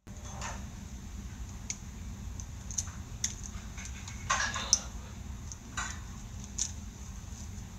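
Small plastic Bakugan toy clicking as it is twisted and snapped in the hands: about a dozen sharp, irregular clicks over a steady low hum.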